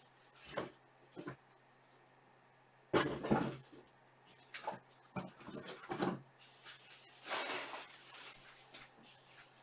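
Knocks and rustling of things being handled, the loudest a clatter about three seconds in and a longer rustle around seven to eight seconds in, over a steady low hum.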